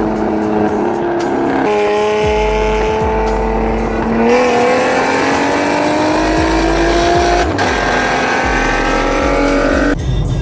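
Chevrolet Camaro engine running alongside at road speed, steady at first, then pulling with its pitch rising slowly for several seconds before easing off, over road and wind noise. The sound changes abruptly near the end.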